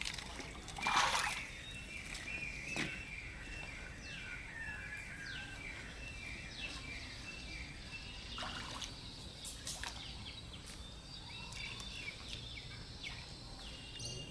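Water sloshing and splashing as a person moves about in waist-deep water, loudest in a burst about a second in. Birds call again and again with short, falling chirps.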